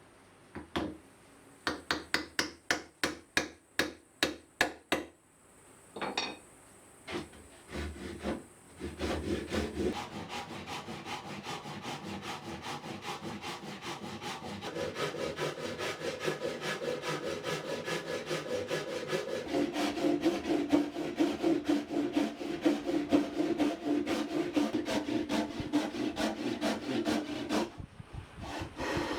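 Hand tools working wood: a quick run of sharp wooden taps, a few scattered knocks, then a long stretch of fast, even rasping strokes on the timber.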